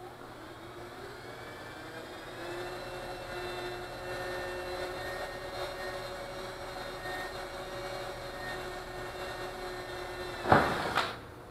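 Cordless drill drilling a hole in an ultralight's wing tip: the motor whine rises over the first couple of seconds and then runs steadily. About ten and a half seconds in comes a short, loud rasp, and the drill stops.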